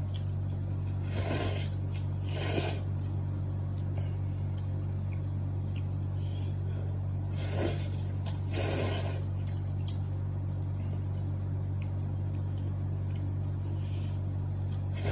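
A person slurping rice noodles in short noisy pulls, about five times, over a steady low hum.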